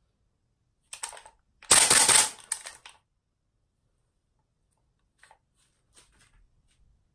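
Type 89 gas-blowback airsoft rifle: a few clicks about a second in, then a rapid burst of shots lasting just under a second, followed by faint clicks from handling the rifle.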